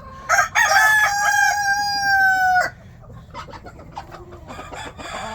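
A rooster crows once, one long call of about two and a half seconds whose pitch sags slightly toward the end. After it come only faint short calls and clicks.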